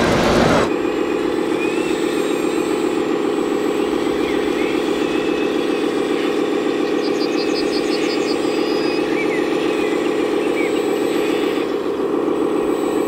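A 1/14-scale RC model machine running, giving a steady, low, pulsing engine-like hum. A louder rushing noise stops under a second in.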